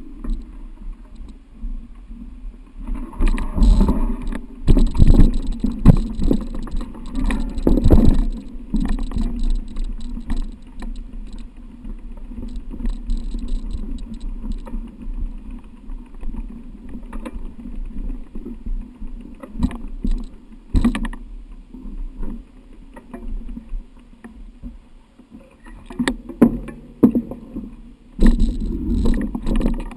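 Mountain bike ridden over rough trail: irregular knocks and rattling, louder and busier in stretches.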